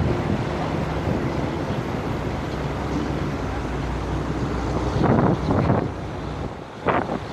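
Vehicle on the move: steady engine and road noise with wind buffeting the microphone, gusting louder about five seconds in and again near the end.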